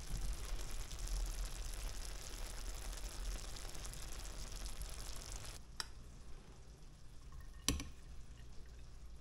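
Bluefish adobo sizzling and simmering in its marinade in a stainless steel pan, a steady hiss that cuts off about five and a half seconds in. Near the end a spoon knocks once against a plate.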